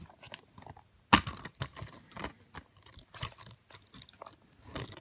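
Plastic Blu-ray packaging being handled: irregular crinkling and clicks of the case and wrapping, with the loudest snap about a second in.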